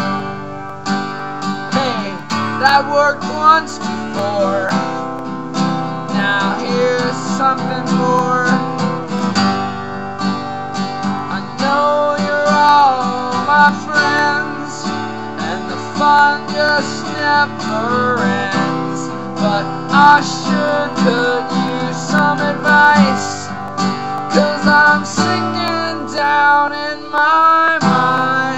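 Acoustic guitar strummed steadily with a man singing over it.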